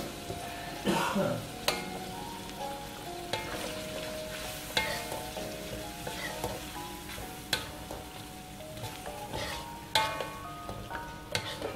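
Wooden spatula and metal ladle scraping and knocking against a steel wok while stirring squid in a thick chilli sambal, over a steady sizzle of frying. The sharp scrapes come every second or two, the loudest about ten seconds in.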